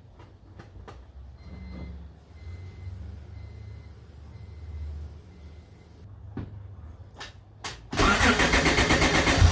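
A low hum with a faint pulsing beep and a couple of clicks. About eight seconds in, the Honda J35 V6 cranks and catches, then runs loudly. It is a cold first start on the newly fitted Holley EFI intake manifold.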